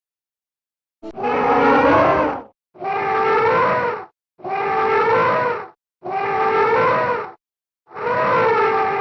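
Elephant trumpeting sound effect, played five times in a row after about a second of silence. Each call lasts about a second and a half, and the last four sound alike, like repeated copies of one clip.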